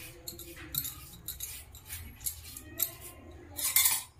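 Silicone pastry brush stroking grease over a paper sheet in a baking tray, with light clinks as it is dipped in a small cup; one louder, brief scrape near the end.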